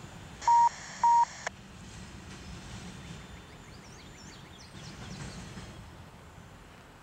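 A radio squelch opens in a burst of static carrying two short beeps about half a second apart, then cuts off suddenly about a second and a half in.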